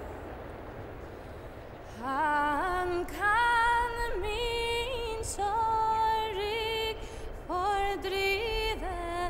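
A woman's solo singing voice, a slow melody of long held notes that comes in about two seconds in and carries on in phrases.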